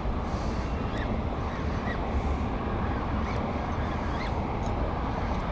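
Steady rumbling wind noise on the camera microphone over open water, with faint short high chirps scattered through.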